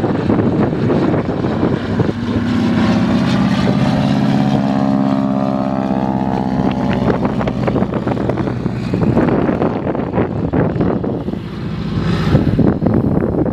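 de Havilland DHC-2 Beaver's Pratt & Whitney R-985 radial engine and propeller running under power as the plane rolls past close by on one main wheel. The engine's steady pitched drone is strongest for several seconds in the middle, over a rough rushing noise.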